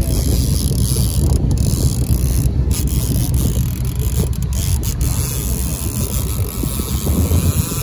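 Steady low rumble of a boat's motor running, with wind buffeting the microphone.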